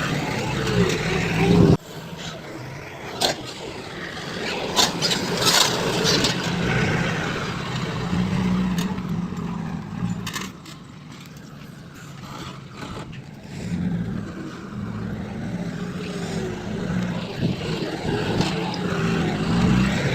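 Heavy construction machinery engines running, with sudden cuts from one clip to another, the first about two seconds in. Scattered clanks and knocks are heard a few seconds later.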